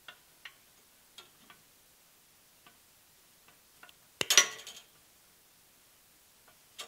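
Plastic link-belt links clicking as they are twisted apart with needle-nose pliers on a steel table: a few light, scattered clicks, then a louder rattling clatter about four seconds in.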